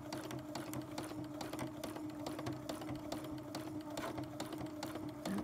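Sewing machine running steadily at speed for free-motion embroidery, its motor humming under a rapid, even clicking of the needle strokes.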